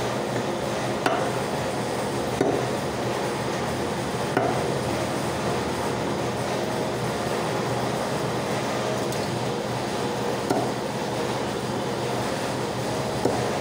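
A heavy meat cleaver chopping quail carcasses on a wooden chopping block: about five sharp chops at uneven gaps, over a loud, steady mechanical drone.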